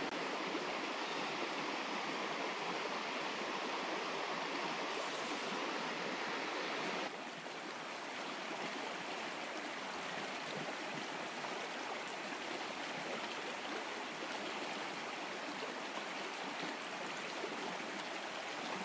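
Small, shallow stream running over stones, a steady rush of water. About seven seconds in, the sound changes abruptly to a slightly quieter, steady flow.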